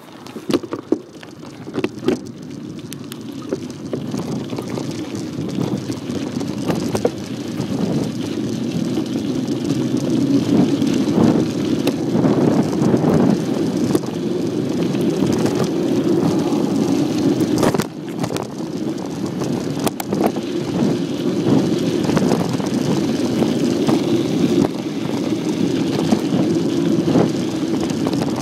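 Mountain bike riding on a dirt trail: a steady rumble of tyres on the ground mixed with wind on the microphone, building up over the first ten seconds or so and then holding, with scattered clicks and rattles from the bike.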